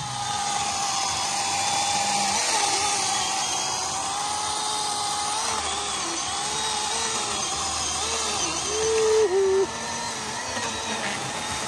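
Small chainsaw cutting through a driftwood log with a steady, high motor whine whose pitch wavers as it cuts. About nine seconds in the tone drops lower and gets louder for under a second, then eases back.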